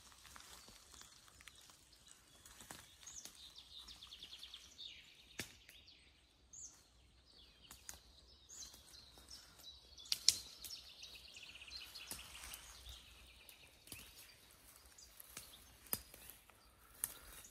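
Faint woodland birdsong: small birds trilling and chirping, with scattered sharp clicks and rustles of footsteps in forest litter, the loudest click about ten seconds in.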